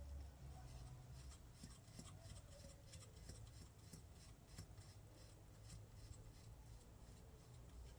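Faint light clicks and scrapes of small engine parts being handled and fitted by hand, clustered in the middle of the stretch over a low hum.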